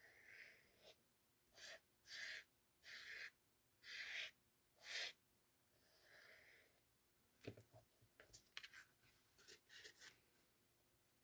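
Fine-tip liquid glue bottle drawn across cardstock in about five short, faint scratchy strokes. This is followed by a run of light clicks and paper handling as the glue bottle is set down and the card is picked up. Soft nasal breathing comes twice.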